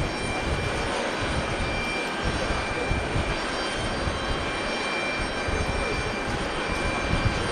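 Boeing 737-500's CFM56-3 jet engines running, a steady rush with thin, high whining tones held at an even pitch.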